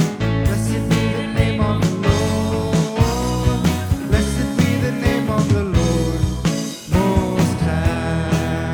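Band music with a steady drum beat under a gliding melody line.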